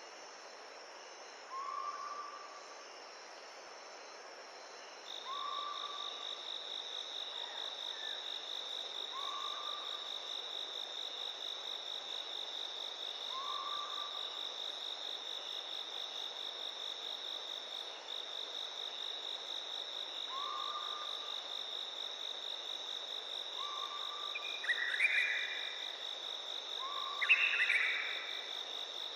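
Cricket-like insect trilling steadily at a high pitch, starting about five seconds in, over a steady hiss. A short, lower animal call repeats every three to four seconds, and louder, higher calls come twice near the end.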